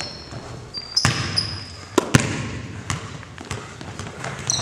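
A basketball bouncing on a hardwood gym floor, with sharp bounces about one and two seconds in. Sneakers squeak briefly on the court as the players move.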